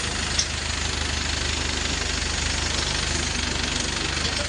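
Engine idling steadily with a fast, even low throb, and one brief click about half a second in.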